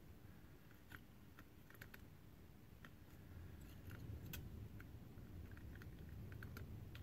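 Near silence with faint, scattered small ticks and clicks from hand-soldering: solder wire and the soldering iron tip touching the joints of a circuit board. A faint low hum swells about halfway through.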